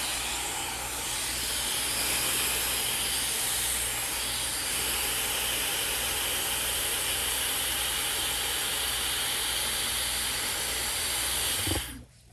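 Dyson Supersonic hair dryer blowing hot air onto hair wound on a round brush: a steady rush of air with a faint high whine. It is switched off just before the end.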